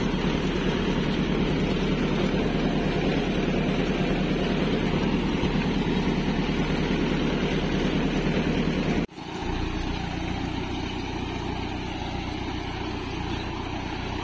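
Tractor's diesel engine running steadily while pulling a working garlic planter. It breaks off abruptly about nine seconds in and resumes a little quieter.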